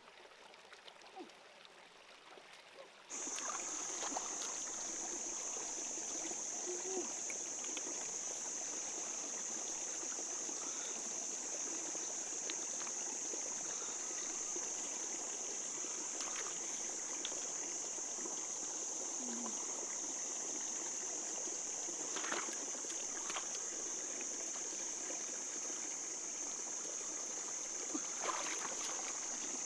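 Water running in a stream, a steady rush that starts suddenly about three seconds in, with a constant high-pitched hiss over it and a few light knocks or splashes near the end.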